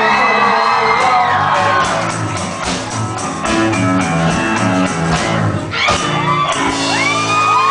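Live rock band of piano, drums and voice playing the closing bars of a song, with a held high note at the start and stepping piano notes over steady drum hits. Audience whoops start up near the end.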